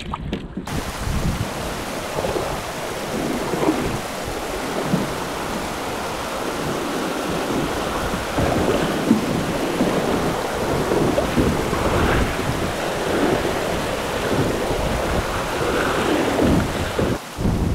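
Heavy rain pouring down onto river water, with thunder rumbling low underneath. It starts abruptly about a second in and stays loud and steady.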